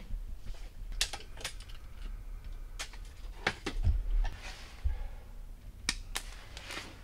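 Sharp, scattered clicks and clacks of hard parts being handled at a workbench, about seven or eight in all, over a steady low hum.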